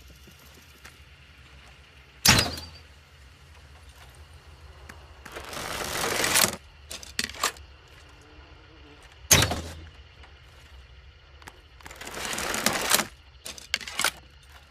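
Crossbow shot twice, each a sharp loud snap of the string's release. Each shot is followed a few seconds later by a longer scrape that grows louder over about a second and a half, then two or three short clicks.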